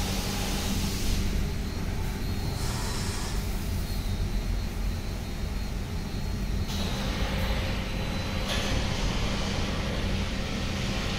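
Tammermatic T700 Turbo rollover car wash spraying solvent pre-wash: a steady pump hum with a spray hiss over it. The hiss fades and comes back a few times as the spray moves over the car.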